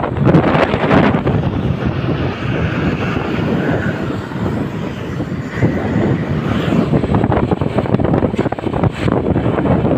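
Loud road traffic and engine noise, with wind buffeting the microphone.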